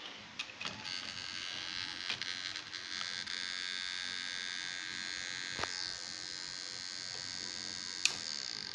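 WD Blue 1TB 2.5-inch laptop hard drive (WD10SPCX) making a steady high-pitched buzzing whine, with a few sharp clicks in the first second and single clicks near the middle and near the end. This is the abnormal drive noise that came with the laptop freezing.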